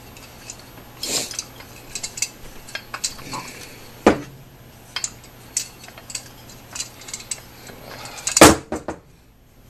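Metal engine parts and brass fittings being handled and set down on a workbench: scattered light clinks and taps, a sharper knock about four seconds in, and a louder clatter near the end.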